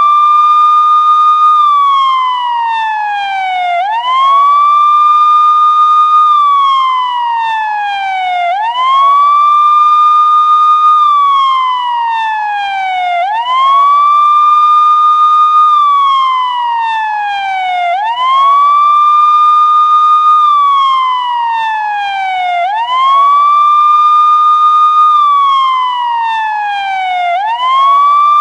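Police siren sounding a wail: the pitch rises quickly, holds briefly, then slides slowly down, about six times over, roughly every four and a half seconds.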